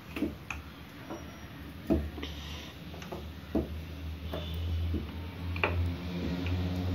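Hands spreading and stretching an oiled sheet of parotta dough on a kitchen slab: scattered soft knocks and clicks a second or so apart, with a low hum coming up in the second half.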